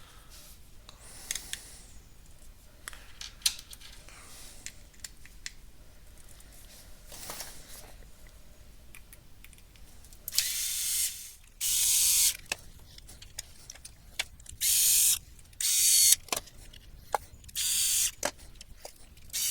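Screwdriver driving small screws into a plastic device case. Light clicks and handling for about ten seconds, then six short, loud runs of a fast mechanical clicking sound, each lasting about half a second to a second.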